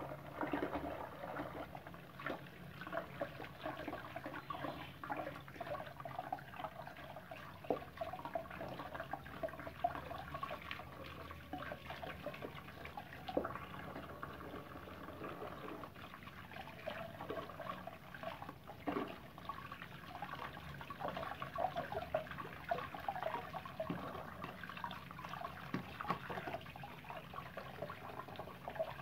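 Soapy water splashing, trickling and dripping in a plastic basin as an abacus part is washed by hand, with scattered light knocks of the part against the basin.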